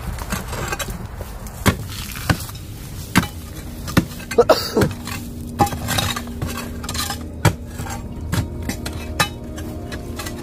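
Irregular sharp knocks and clinks of digging tools striking stones and earth, about a dozen strikes, with a faint steady hum joining about four seconds in.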